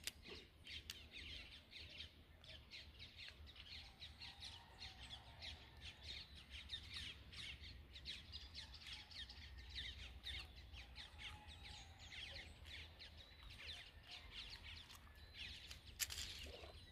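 Faint chorus of many birds chirping and calling over a low steady rumble, with a single sharp click about a second before the end.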